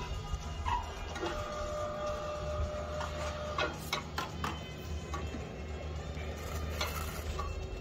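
Small crane's hoist motor whining steadily for about two seconds over a low machine hum, then several sharp knocks as the aerated-concrete blocks are set and handled, with one more knock near the end.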